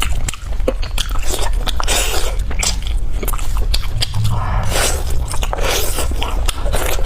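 Close-miked mouth biting and chewing pork leg bone meat, with many sharp crunches, clicks and scraping sounds of teeth working against the bone.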